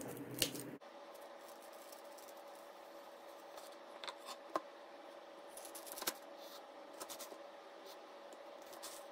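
Chef's knife cutting through a raw onion and tapping on a wooden cutting board: faint crisp slicing and a few scattered knife clicks. A steady low hum cuts off abruptly about a second in.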